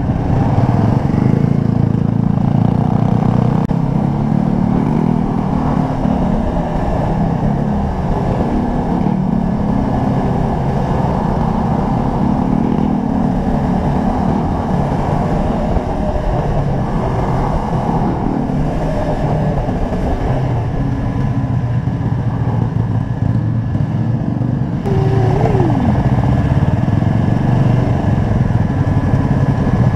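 Sport motorcycle engine running steadily at low road speed, heard from on board the bike, while other motorcycles ride just ahead.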